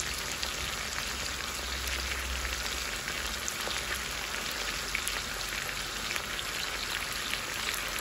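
Beef pieces frying in hot oil in a nonstick pan, sizzling steadily with many small crackling pops.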